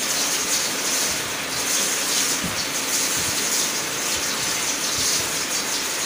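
Steady hissing rush at the discharge of a continuous mesh-belt heat-treat furnace, where red-hot concrete nails pour off the belt into the quench tank, with a faint machine hum and a few soft low thumps underneath.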